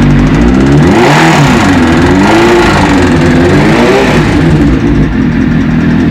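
Suzuki GSX-R750 inline-four motorcycle engine idling, then revved up and down about three times by the throttle before settling back to idle. It is running with a knock (стук), the fault the recording is made to show.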